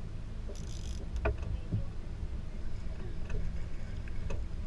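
Steady low rumble of wind and water around a small aluminum fishing boat, with a few short sharp splashes and knocks as a hooked fish thrashes at the landing net.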